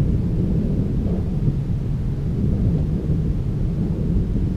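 Low, steady rumble of wind buffeting the action camera's microphone.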